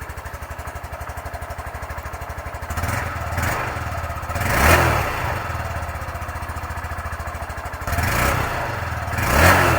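Honda Grom MSX125's single-cylinder four-stroke engine on its stock exhaust, idling with a quiet sewing-machine putter. It is revved twice, about three seconds in and again near the end, each rev rising and dropping back to idle.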